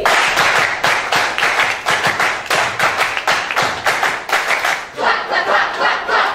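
Audience applauding, dense and steady, with voices cheering over the clapping in the second half.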